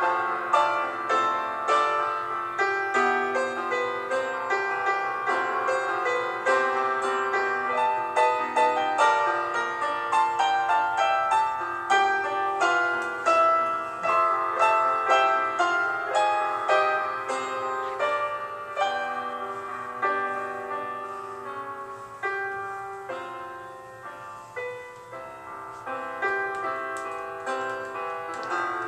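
Background piano music: a steady flow of struck notes that ring and fade, growing softer for a few seconds in the second half before swelling again near the end.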